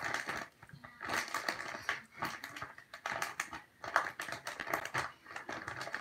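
Sticky slime being pulled and scraped out of a plastic bag by hand: irregular crinkling of the bag and sticky clicking in short bursts.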